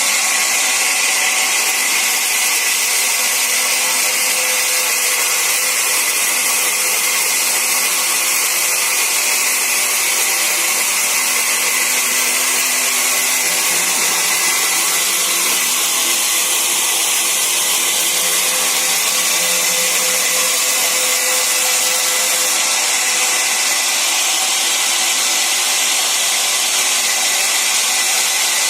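Sawmill saw running continuously through wood, a steady, unchanging high-pitched whirring hiss.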